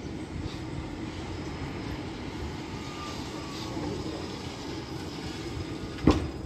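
71-623-02 low-floor tram running slowly as it pulls into the stop, a steady hum and rumble. A single sharp clunk about six seconds in.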